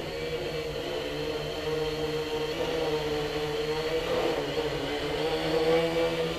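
Electric quadcopter's motors and propellers buzzing as it hovers, the pitch wavering slightly up and down as the motor speeds adjust. It grows louder toward the end.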